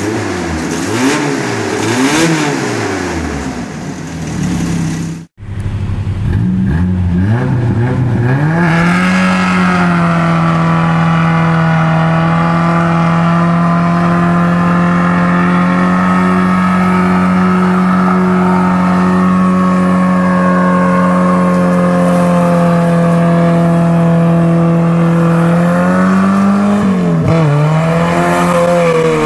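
A freshly installed pickup engine revving up and down a few times just after its first start. After a cut, a Chevy pickup's engine climbs and holds a steady high rev for about twenty seconds with the rear wheels spinning in a burnout, dipping briefly near the end before rising again.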